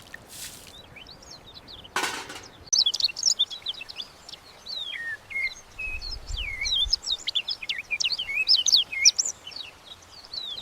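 Birds singing, a dense run of quick rising and falling chirps that starts about three seconds in. Before it come two short noisy swishes, the louder one at about two seconds.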